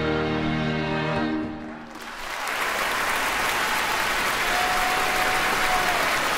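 The final chord of a string and piano ensemble rings and fades out. About two seconds in, an audience breaks into steady applause.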